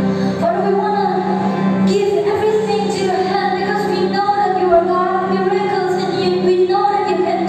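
Young women singing a slow Christian worship song into microphones through a sound system, with guitar accompaniment; the sung notes are long and drawn out.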